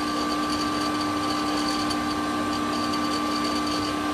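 Metal lathe running steadily, its motor and gear train giving an even hum with a constant high whine.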